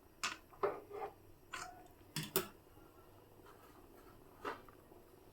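A few light clinks and taps of kitchenware against a cooking pot. There is a quick run of them in the first couple of seconds, some ringing briefly, and one more near the end.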